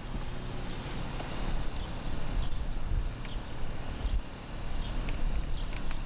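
Plastic Maxxfan roof vent being handled on a van's metal roof, with a few light knocks over a steady low outdoor rumble and a few short, faint bird chirps.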